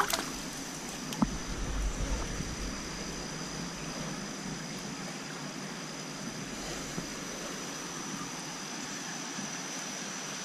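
Shallow creek water running steadily over rocks. A hand splashes in the water a couple of times near the start.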